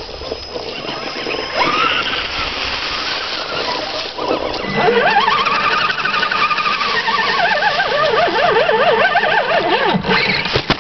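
Electric motors and geared drivetrains of RC rock crawlers whining as they climb a boulder. The pitch rises with throttle about a second and a half in and again a few seconds in, then wavers up and down quickly as the throttle is worked.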